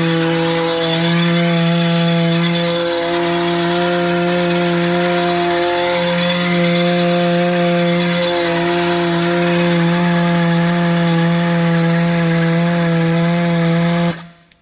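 Lightnin XJASS-33 pneumatic (air-motor) mixer running full bore on unregulated air: a loud, steady whine over hissing air that cuts off suddenly near the end.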